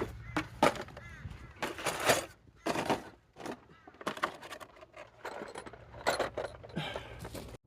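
Irregular knocks and clatters, some sharp and some longer, with a crow cawing about a second in.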